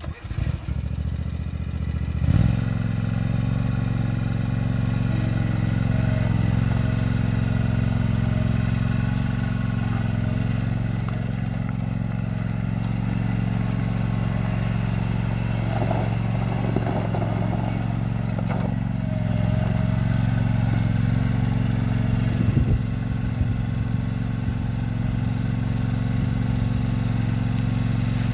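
Gasoline engine of a 2011 Country Clipper JaZee Pro 52-inch zero-turn mower running steadily as the mower is driven over gravel. It grows louder about two seconds in, with a few brief rattles along the way.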